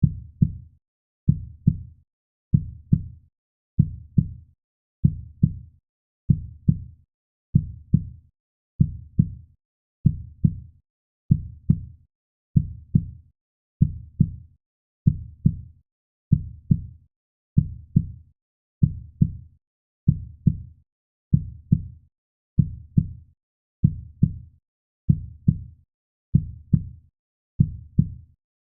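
Steady, slow heartbeat: pairs of low, soft thumps (lub-dub) repeating evenly about every one and a half seconds.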